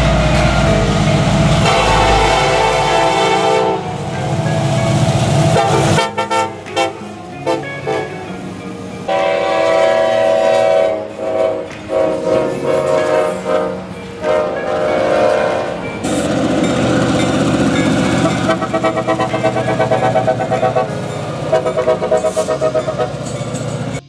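Diesel locomotive air horns sounding long, chord-like blasts as freight trains pass, over engine rumble and rail noise. The sound changes abruptly several times as different trains' horns follow one another.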